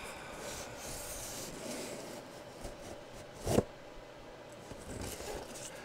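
Cardboard box being opened and handled: low rubbing and scraping of cardboard, with one short knock about three and a half seconds in.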